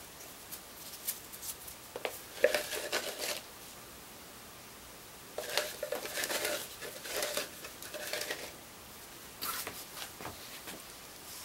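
Short spells of light rustling and scraping from handling the plastic resin tub and squeegee over fiberglass cloth wet with epoxy, in three bursts with lulls between them.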